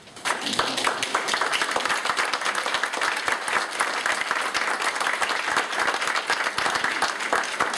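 Audience applauding: a dense patter of many hands clapping that breaks out suddenly just after the start and keeps going.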